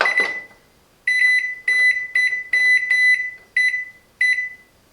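Silvercrest SMWC 700 D1 microwave's control panel beeping as its rotary knob is turned to set the clock hour, one short, high beep per step. About ten beeps in quick, uneven succession.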